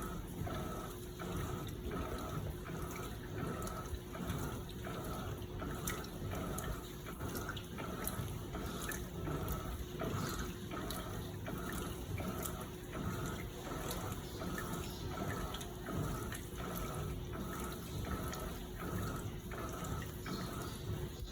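Electrolux LPE16 washing machine churning water and blankets in its wash cycle: a rhythmic swish about twice a second over a steady motor hum.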